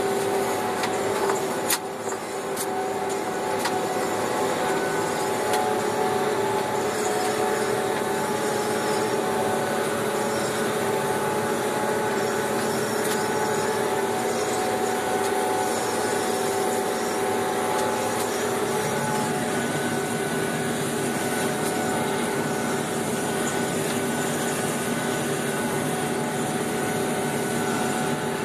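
John Deere 6330 tractor working steadily under load, heard from inside the cab while it pulls a John Deere 1365 mower through tall reed canary grass: an even engine drone with a few steady tones. A single sharp click comes about two seconds in.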